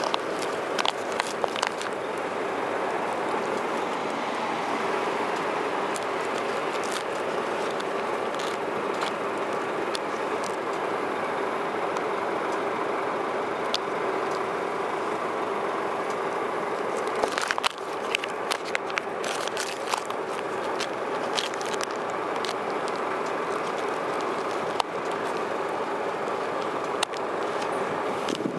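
Small sharp clicks and rustles from metal hex keys in a vinyl tool roll and a plastic bag being handled, thickest about two-thirds of the way through. Underneath is a steady background noise.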